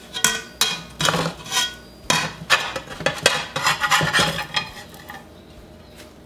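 A spatula clattering and scraping against a frying pan and a plate as pancakes are lifted out: a quick run of sharp clinks with short metallic ringing that stops about five seconds in.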